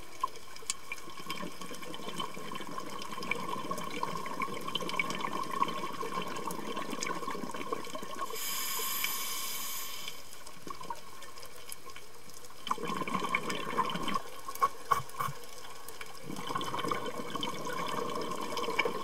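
Bubbling, gurgling water sound with scattered sharp clicks, and a brief high shimmering tone about eight seconds in; it grows busier and clickier in the last few seconds.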